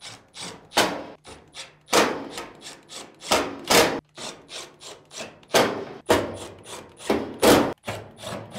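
Screws being driven back into a dryer's rear drum assembly with a Phillips screwdriver: a run of short scraping knocks, about one or two a second at irregular spacing.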